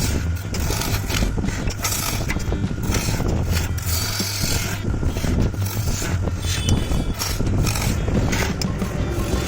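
Wood lathe motor running with a steady hum while a turning tool scrapes and cuts the spinning wood in irregular bursts.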